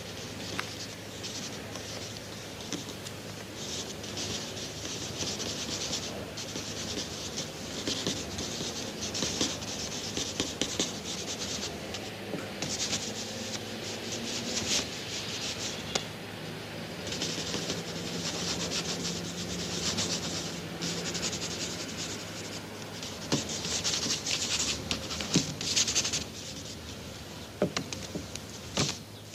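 Repeated rough scraping and brushing strokes of a brush or tool worked over a painting canvas, each about a second long with short gaps and a few sharp taps, over a low steady hum.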